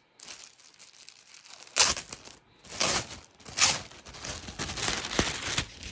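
Clear plastic clothing packaging crinkling and tearing as it is handled and pulled open, in a run of sharp rustles, the loudest a little under two, about three and about three and a half seconds in.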